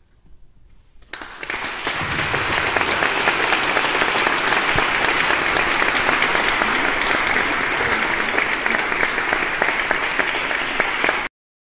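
Audience applauding: a dense, steady clapping that starts about a second in after a short quiet and cuts off suddenly near the end.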